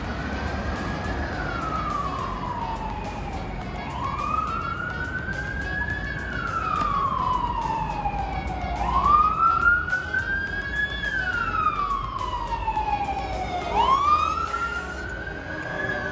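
Emergency vehicle siren in a slow wail: the pitch climbs for about a second, then falls for about three, repeating about every five seconds over a steady low rumble.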